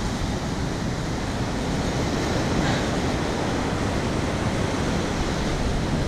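Heavy ocean surf breaking and washing up the beach as a steady rush of noise, with wind rumbling on the microphone.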